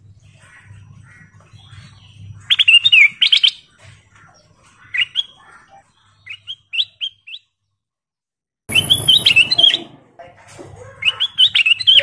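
Ruby-throated bulbul (kutilang emas) singing short, quick warbling phrases of whistled notes, several phrases with pauses between them; the loudest come about two and a half seconds in and again near the end.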